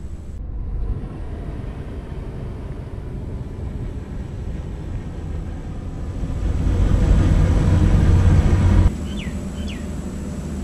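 Steady low rumble of traffic on the road bridge overhead, swelling as a vehicle passes and cutting off abruptly near the end. Two short chirps follow right after.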